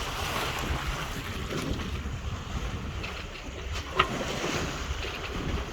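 Wind buffeting the microphone and choppy water rushing along the hull of a sailing yacht under sail, with one sharp knock about four seconds in.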